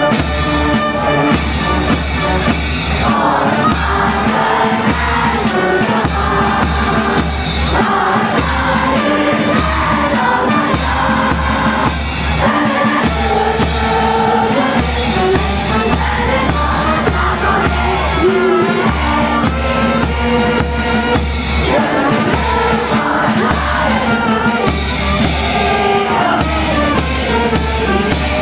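A live band playing a song with singing over a steady drum and bass beat.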